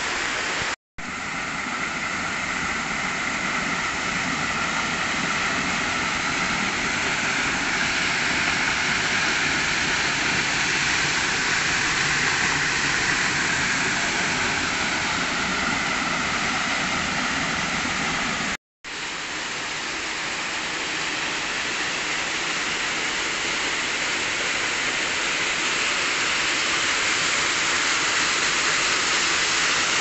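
Steady rush of a small waterfall pouring fast over rocks into a pool. The sound drops out to silence for an instant twice, about a second in and just past halfway.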